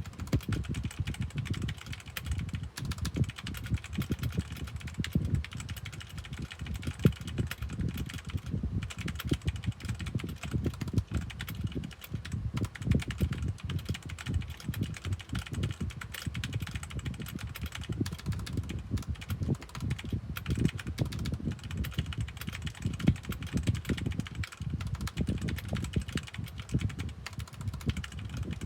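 Fast, continuous typing on an unmodded Redragon Fizz mechanical keyboard, the keystrokes clattering many to the second without a break. A room fan's steady rush of air runs behind it.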